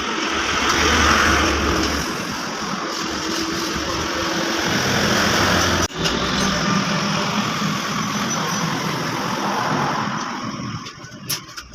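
A machine motor running steadily with a strong hissing noise and a low hum, broken off briefly about six seconds in, then fading near the end.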